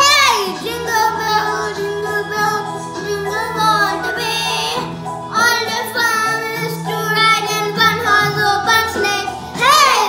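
A child singing over backing music, with a bass line moving between held low notes.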